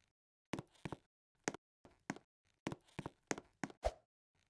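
A string of short, irregular knocks and taps, roughly fifteen over four seconds, often in close pairs, with dead silence between them; the loudest comes near the end.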